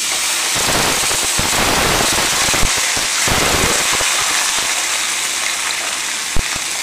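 Tomato sauce poured from a can into a hot skillet of sautéed mushrooms and onions, bursting at once into loud, steady sizzling with irregular pops and spatters.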